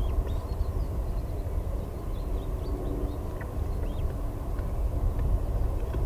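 Low, steady wind rumble on the nest camera's outdoor microphone, with a few faint, thin, high bird chirps scattered over it.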